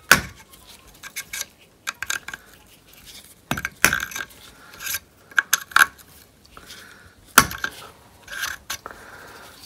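Helicoil tang break-off tool worked into the freshly fitted coiled wire inserts to snap off their driving tangs: a string of sharp, irregularly spaced metallic taps and clinks.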